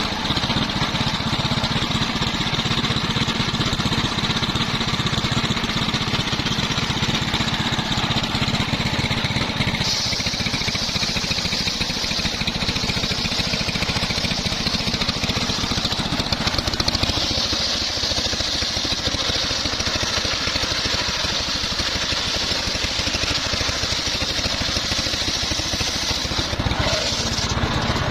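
Engine-driven home-built circular sawmill running steadily while ripping a trembesi (rain tree) log. A high whine from the blade grows stronger about ten seconds in.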